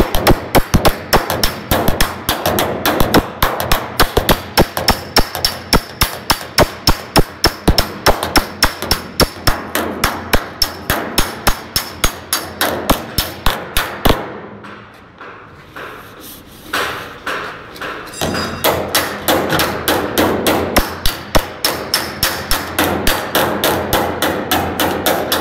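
Hammer beating the welded sheet-steel body panel of a 1960 Chevrolet Impala: rapid, evenly spaced metal blows at a few per second. They stop for about four seconds past the middle, with only a few stray taps, then carry on.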